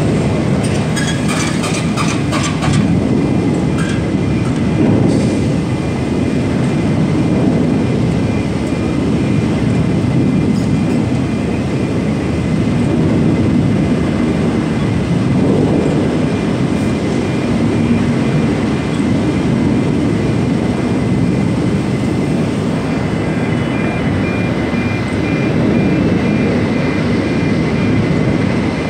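Gantry log crane running as its grapple lifts a truckload of logs and carries it away: a continuous heavy mechanical rumble, with a few metallic clanks in the first three seconds and a thin steady high whine, joined near the end by an intermittent beeping.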